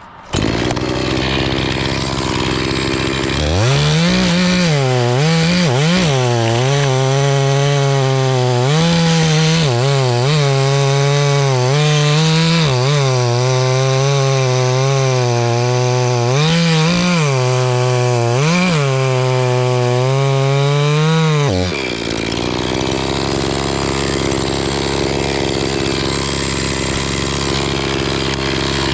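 Two-stroke chainsaw cutting chunks out of a maple stem. It comes up to full throttle about three and a half seconds in, its pitch sagging and recovering several times as the chain bogs in the wood. About 22 seconds in it drops back off the throttle.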